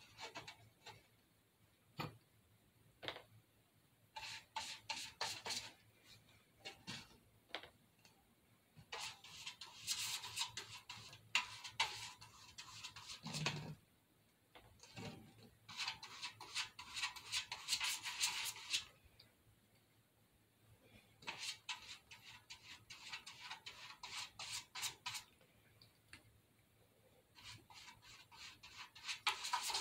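Paintbrush bristles brushing over a paper picture stuck onto a painted metal can, in spells of quick scratchy strokes a few seconds long with short pauses between. A single dull thump about halfway through.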